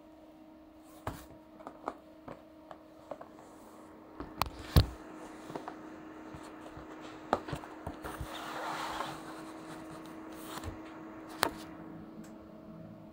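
A cardboard product box being handled and opened: scattered light clicks and knocks, one sharper knock about five seconds in, and a brief scraping slide around eight to nine seconds in, over a steady low hum.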